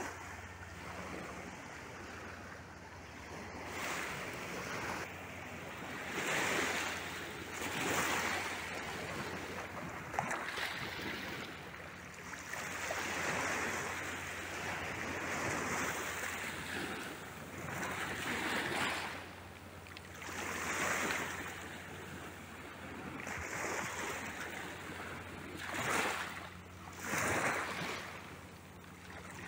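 Small sea waves breaking and washing over a pebble beach, the wash swelling and fading every two to three seconds.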